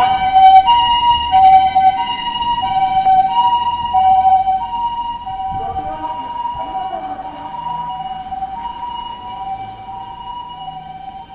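Japanese ambulance's electronic siren sounding its two-tone "pee-poh" call, a higher and a lower tone alternating steadily about every half second. It fades as the ambulance drives away.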